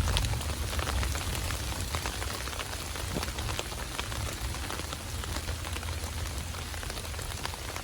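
Steady rain falling, with many single drops ticking close by. A low rumble of thunder dies away over the first second or two.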